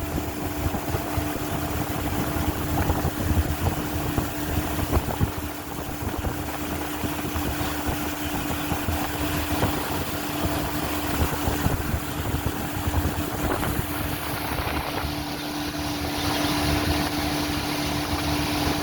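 Small boat's motor running steadily under way, a constant hum with water and air noise.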